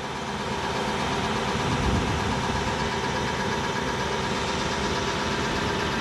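An engine idling steadily, a constant hum.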